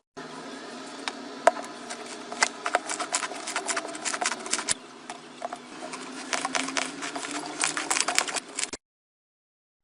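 Hands squishing and poking slime, giving a run of irregular sticky clicks and pops. The sound cuts off abruptly about a second before the end.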